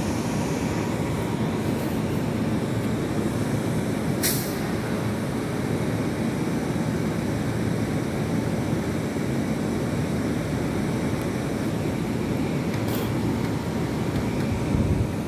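Long Island Rail Road M9 electric multiple-unit train at the platform, with a steady low rumble and hum. A short, sharp hiss of air comes about four seconds in, and a fainter one near the end.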